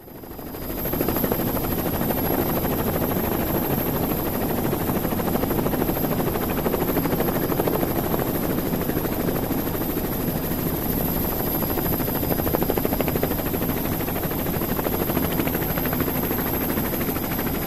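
Helicopter in steady flight, its rotor making a fast, even flutter over the engine noise; it fades in over the first second and cuts off suddenly at the end.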